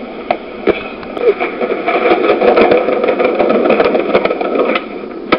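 Skateboard wheels rolling on concrete pavement: a rough rumble that swells for about three seconds, with scattered sharp clacks of the board. A louder clack comes near the end.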